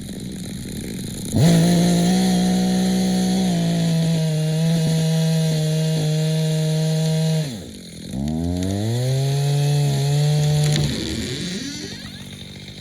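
Gas chainsaw cutting live oak: it idles, is opened to full throttle about a second and a half in and held at a steady high pitch, drops off briefly around eight seconds, revs back up, then eases back toward idle near the end.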